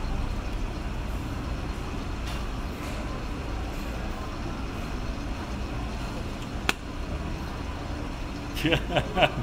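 Steady low outdoor street rumble, with one sharp click about two-thirds of the way through and voices starting near the end.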